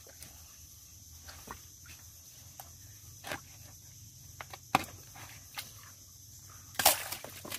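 Hands and a bolo knife digging in wet mangrove mud at a crab hole: scattered sharp squelches and knocks, the loudest near the end. A steady high insect hum runs underneath.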